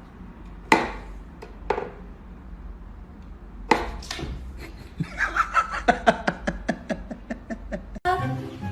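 A few separate knocks on something hard, then a quick run of light taps, about five a second, near the end.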